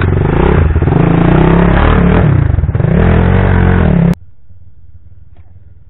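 Trail motorcycle engine running loud at low speed, its pitch rising and falling as the throttle is opened and closed. It cuts off abruptly about four seconds in, leaving only a faint low rumble.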